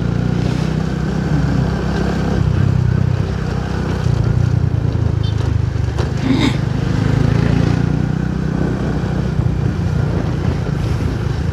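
Motorcycle engine running steadily while riding at road speed. A brief pitched sound rises over it about six seconds in.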